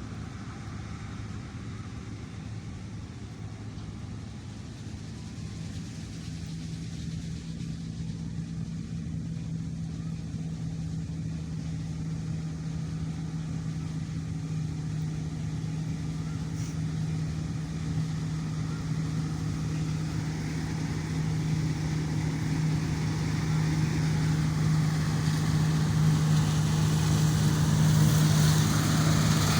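Combine harvester engine running steadily while cutting wheat, a low even hum that grows louder over the stretch.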